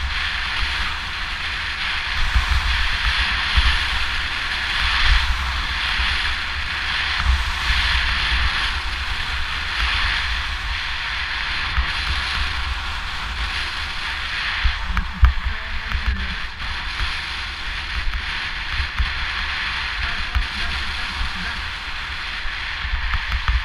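Skis sliding and scraping over packed snow, the hiss swelling and easing every second or two through the turns, with wind buffeting the camera's microphone as a steady low rumble.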